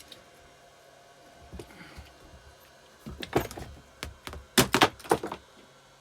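Metal hand tools clinking and knocking against each other and the engine: a few light clicks, then a cluster of sharp metallic knocks about three seconds in, loudest near the end.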